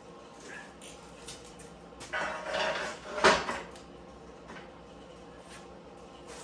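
Steel channel irons being handled: a scraping, rattling metal sound about two seconds in, then one sharp, loud metal clank.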